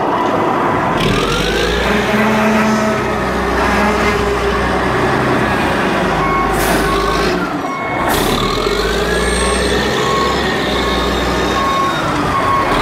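Heavy diesel machinery running with a steady low rumble and a whine that rises and falls several times. In the second half a reversing beeper sounds about once a second, and two short bursts of hiss come in the middle.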